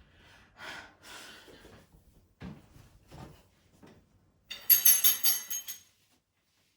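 Rustling and a couple of light knocks, then about a second of loud metallic jangling and clinking from the hooks and metal rail of an IKEA FINTORP hanging rail being handled.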